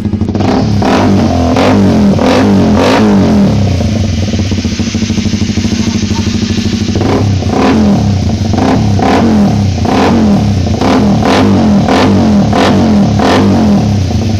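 Suzuki GSX-S150's single-cylinder engine through an aftermarket racing canister muffler, revved in quick repeated throttle blips about twice a second. The engine holds a steadier note for a few seconds in the middle before the blipping starts again.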